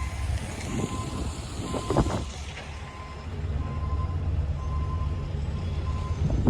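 Backup alarm of a piece of construction equipment beeping about once a second, over a diesel engine running, which gets louder about three seconds in. A sharp knock sounds about two seconds in.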